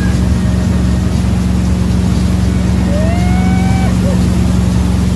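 Motorboat engine running steadily at speed, a low drone over the rush of water. A person gives a short high call about three seconds in.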